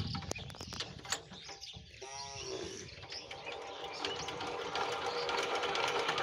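Single-cylinder diesel engine of a 12-horsepower Kamco power tiller running with a steady rapid clatter. A short bleat sounds once about two seconds in.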